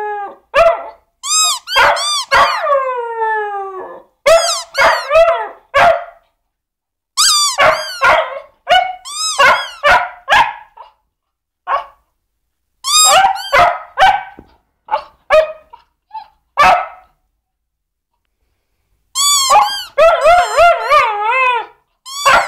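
Cocker spaniel barking in repeated bouts, some calls drawn out and falling in pitch like a howl. A pause of about two seconds comes near the end, then another quick run of barks.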